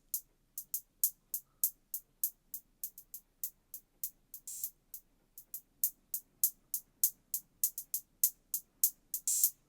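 A drum-machine hi-hat pattern playing alone: short closed-hat ticks about four a second, with a longer, brighter open hat twice. The hats pass through a single parametric EQ band whose frequency is being swept.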